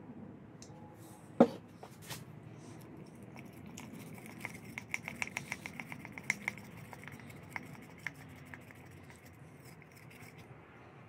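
A wooden stick stirring a thick paste in a glass jar, scraping and ticking against the glass in quick runs of clicks, busiest in the middle. A single sharp knock about a second and a half in.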